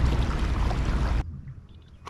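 Rushing wind and water noise of a fishing kayak under way, with a heavy low rumble of wind on the microphone; it cuts off abruptly a little over a second in.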